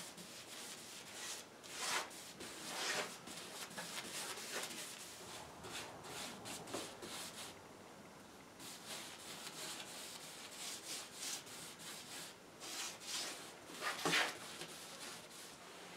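Bristle paintbrush scrubbing and spreading wet asphaltum glaze across a finished wooden tabletop: soft, irregular swishing strokes with short pauses, the strongest stroke near the end.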